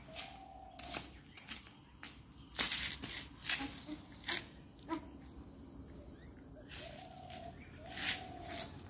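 Steady high-pitched chirring of crickets and other insects, broken by about eight short sharp slaps and scuffs and a few brief, level whine-like tones, one near the start and two near the end.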